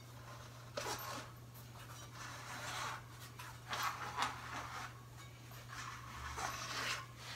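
Rubber bicycle tire being worked over the rim by hand: the bead rubs and scrapes against the rim in several short, irregular spells.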